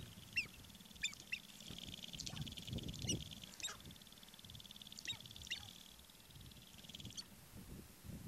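Sharp-tailed grouse calling: short, sharp, high chirping notes come in clusters over a fast buzzing rattle that stops a little before the end.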